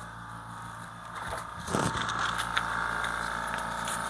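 A machine's motor starts up about two seconds in and runs steadily, with a few light metallic clicks over it.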